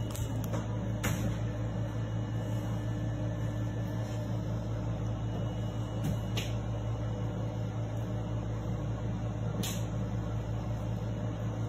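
Steady low room hum, with three faint clicks spread through it.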